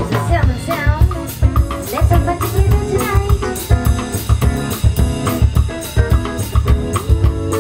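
Live rock band playing. A woman sings into a microphone for the first few seconds over drum kit, bass and electric guitar, with a steady kick-drum beat throughout.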